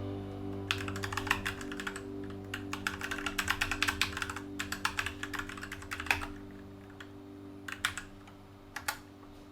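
Typing on an inexpensive mechanical keyboard: quick runs of keystrokes for about five seconds, then a few separate key presses near the end. Background music fades out underneath.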